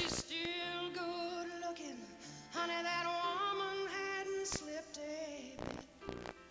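A woman singing a slow country song line with held notes and sliding pitch, over soft piano accompaniment; it grows quieter near the end.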